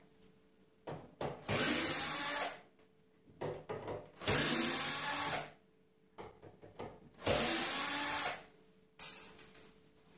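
Cordless drill-driver run in three bursts of about a second each, backing screws out of a particleboard cabinet. Small clicks come between the bursts, and there is a sharp knock near the end.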